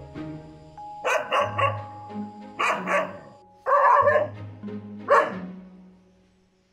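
A black-and-white terrier-type dog barking at its own reflection in a mirror, in quick groups of sharp barks that stop about five seconds in, over background music.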